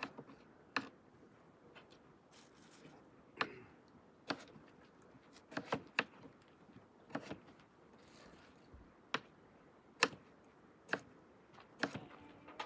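Knife chopping on a cutting board: sharp taps at an uneven pace, roughly one a second, some in quick pairs.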